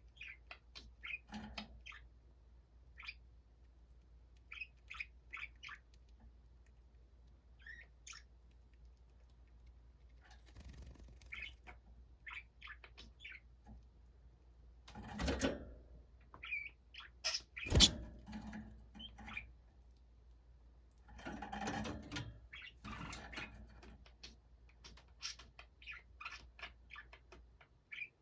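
Pet budgerigars chirping quietly in short, scattered notes. A few louder noisy bursts and one sharp tap come partway through.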